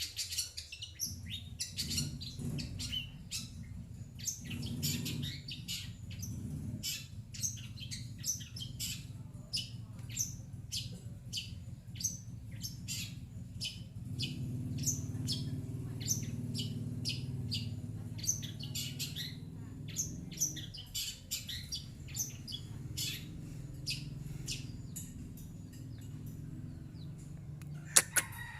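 Long-tailed shrike (cendet) singing a rapid run of short, high chirps, several a second, over a low steady hum. A sharp double click comes near the end.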